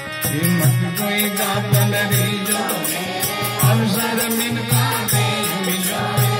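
Harmonium playing held chords under a man singing a devotional bhajan in a chant-like melody, the voice coming in a moment after the start. A fast, steady percussion beat runs under it.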